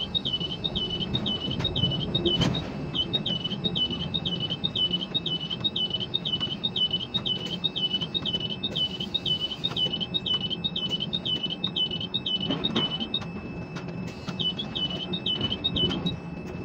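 Inside a quay crane's cab, an electronic warning beeper chirps about three times a second over the steady low hum of the crane's machinery. The chirping breaks off briefly twice, and there are two dull knocks, about two seconds in and about twelve seconds in.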